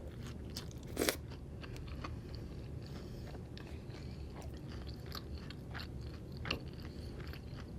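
Close-up chewing of a fried chicken taco: wet mouth clicks and soft crunches. Sharper clicks come about a second in and again near six and a half seconds.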